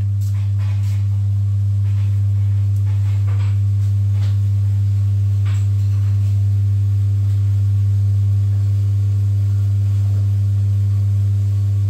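Primary current injection test kit's transformer humming loudly and steadily while delivering close to its 2000-ampere maximum output current.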